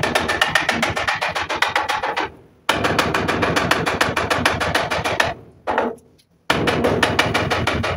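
Handheld power tool run at the patio post's timber brace in three bursts, each a fast, even rattle of strikes that starts and stops sharply, with short pauses about two and a half and six seconds in.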